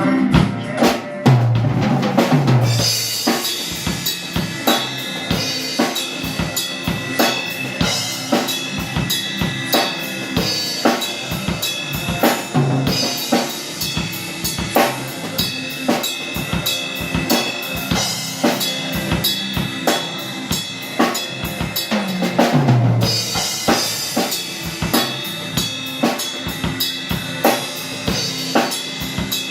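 Rock drum kit playing a steady groove of bass drum, snare and cymbals, with the rest of the band's music underneath. Tom fills come about two seconds in and again about twenty-three seconds in.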